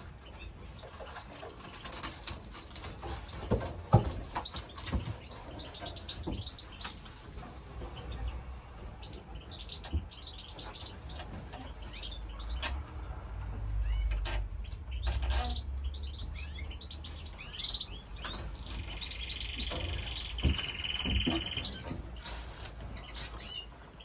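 Small aviary birds, canaries among them, chirping and twittering in short calls, with wing flutters and light knocks on perches; late on one bird gives a rapid trill lasting a couple of seconds. A low rumble rises briefly in the middle.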